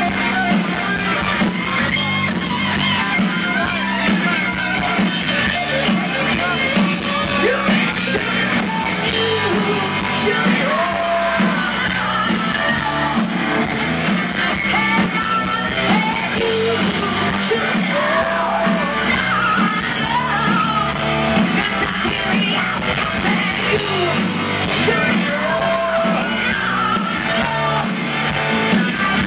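Live rock band playing loud: electric guitars and drums under a lead singer's yelled, hard-rock vocals.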